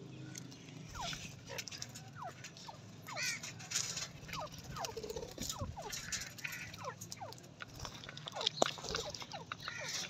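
Captive grey francolins and budgerigars calling together: many short, quick falling chirps scattered through, with a few warbling calls mixed in.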